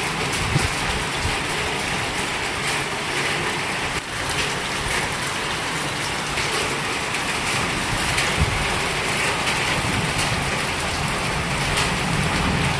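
Heavy rain falling steadily, with many sharp taps of drops striking surfaces.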